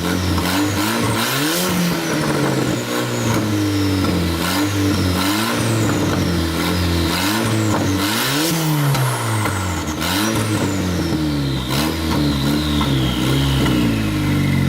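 Audi A4 2.0T's turbocharged four-cylinder engine being revved again and again in short blips, its pitch rising and falling each time, with high whistles that slide slowly down in pitch after the revs.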